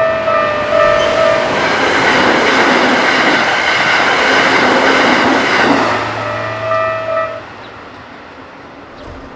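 A level-crossing warning bell rings as a repeating electronic ding, and a Keikyu Main Line train rushes through the crossing at high speed. The train's passing noise covers the bell for several seconds, and the bell stops about seven seconds in.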